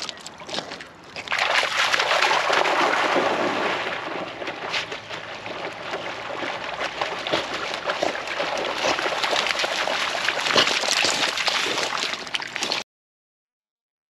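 Springer spaniels running and splashing through shallow lake water: a loud, dense splashing and sloshing that cuts off suddenly near the end.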